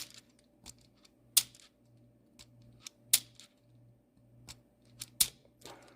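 Scattered sharp clicks and clacks from a hand-held automatic wire stripper being handled and worked, with about four louder clicks spread through and lighter ticks between.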